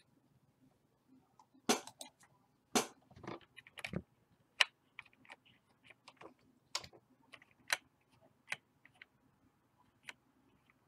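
Irregular sharp clicks and taps at a computer, a dozen or more, the loudest in the first few seconds, as the map view is moved.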